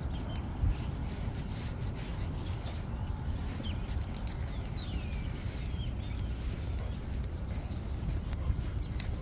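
Footsteps of a walker and a leashed dog on an asphalt path, over a steady low rumble, with short falling bird chirps several times from a few seconds in.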